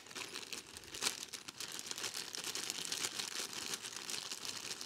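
Small clear plastic bag crinkling as hands rummage in it: a dense, continuous stream of fine crackles that starts abruptly.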